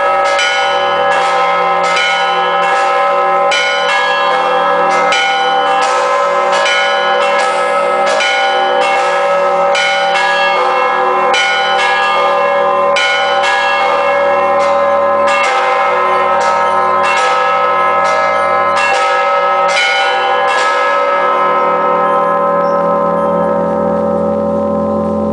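Church bells of an Orthodox cathedral set, from 90 kg up to 6,000 kg, rung by hand. A quick, steady run of strikes, about two a second, sounds over the sustained hum of the larger bells. About three-quarters of the way through the strikes stop, and the bells ring on and slowly fade.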